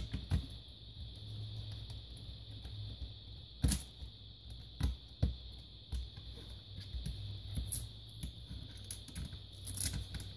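Scattered clicks and knocks of plastic laptop case parts and small components being handled and fitted together during reassembly, with a few sharper knocks about a third of the way in, around the middle, and near the end.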